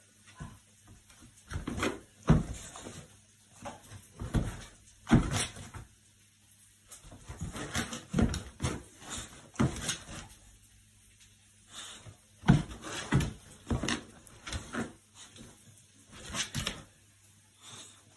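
A bulldog moving about on a tiled floor and rug, making a string of short, irregular thumps and scuffs with pauses between.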